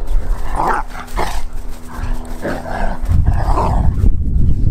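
Two dogs play-fighting, giving about four short rough growls and barks as they wrestle and chase, with a low rumble starting near the end.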